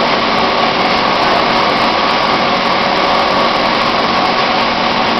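Windsor Machines PVC pipe extrusion line running: a loud, steady machine hum and hiss with a faint constant whine, unchanging throughout.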